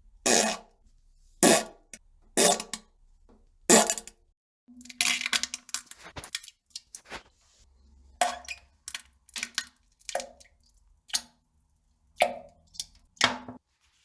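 Farting and plopping sounds of someone defecating: a string of about a dozen short, separate bursts with gaps between them. A longer one about five seconds in carries a steady low pitch.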